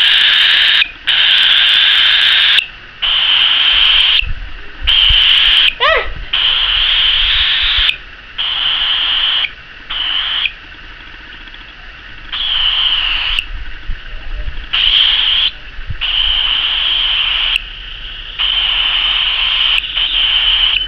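Cockatiel giving long, harsh, raspy calls over and over, about eleven in all, each lasting about a second with short pauses between. A short rising whistle-like glide comes about six seconds in.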